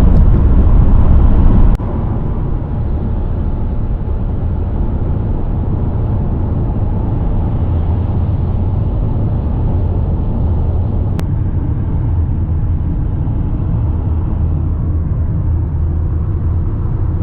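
Car driving along the road: a steady, low road and engine rumble. It drops in level about two seconds in and cuts off suddenly at the end.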